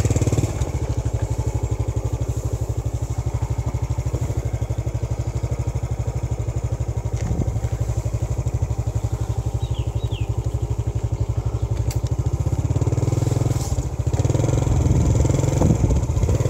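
Small motorcycle engine running steadily as the bike rides along, heard from the pillion seat. It grows louder near the end.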